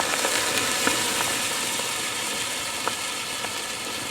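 Thermite burning inside a burrito: a steady hiss and sizzle, with a few sharp pops and crackles scattered through it.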